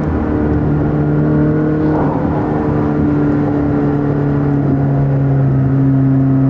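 McLaren 600LT's twin-turbo V8 running at a steady cruise, heard from inside the cabin as a steady engine drone over tyre and road noise.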